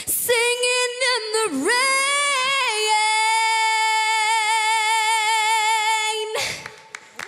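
A teenage girl's solo singing voice with no accompaniment: a quick run of sliding notes, then one long high note held with vibrato for about three and a half seconds before it cuts off.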